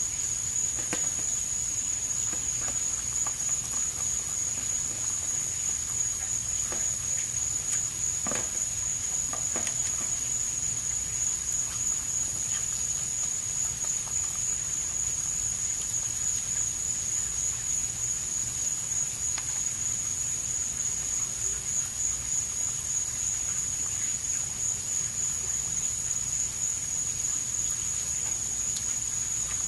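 Insects trilling in one steady, high-pitched, unbroken chorus, with a few faint clicks about a third of the way through.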